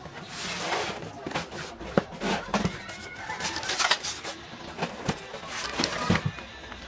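Cardboard packaging rustling, scraping and knocking as a gas table cooker is lifted out of its box, with several sharp knocks among the rustling.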